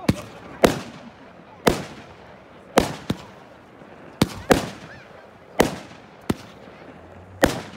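Aerial fireworks shells bursting overhead: about nine sharp bangs, roughly a second apart, each trailing off in a short echo.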